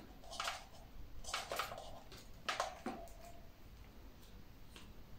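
A few faint clicks and knocks in the first three seconds as metal beaters are pushed into a Russell Hobbs electric hand mixer and the mixer is handled; the mixer is not running.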